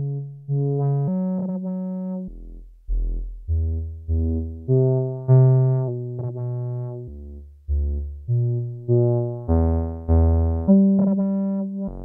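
Eurorack modular synthesizer voice playing a sequence of short, plucked notes at randomly changing pitches, roughly two a second, each starting sharply and fading away; some notes come out brighter than others.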